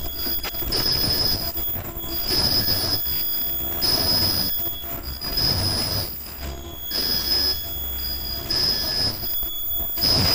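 Automatic mask earloop welding machine running in a steady cycle: a high-pitched squeal about every one and a half seconds, about seven in all, over continuous mechanical clatter and low rumble. The squeal is typical of the ultrasonic welding head bonding each earloop.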